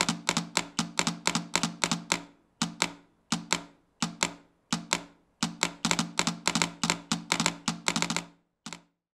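Telegraph keys clicking rapidly in runs of several clicks broken by short pauses, the rhythm of Morse code tapping out words, with a low hum under each run. The clicking stops shortly before the end.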